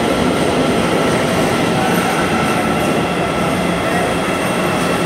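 Subway train running: a steady, loud rumble and hiss with a few faint steady hum tones.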